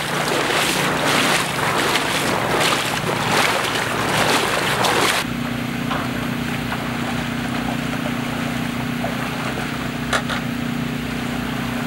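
Legs wading fast through knee-deep floodwater, splashing loudly with each stride. About five seconds in it cuts to a vehicle engine idling with a steady hum, and a single sharp click comes near the end.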